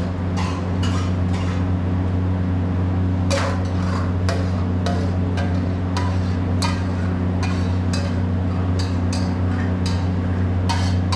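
Steel ladle knocking and scraping against a steel kadai and small steel bowls as food is stirred and scooped out, in irregular clinks and scrapes over a steady low hum.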